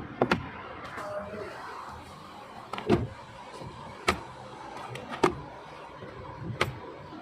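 Five sharp knocks or clicks at uneven intervals, roughly a second or more apart, over a low background.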